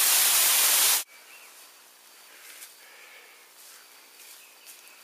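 A loud hiss of static cuts off suddenly about a second in. It leaves quiet woodland ambience with small birds chirping and faint rustling, like footsteps in dry leaf litter.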